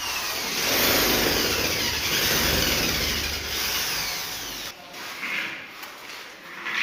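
A power tool running loudly for about the first five seconds, then dropping to quieter, irregular working sounds.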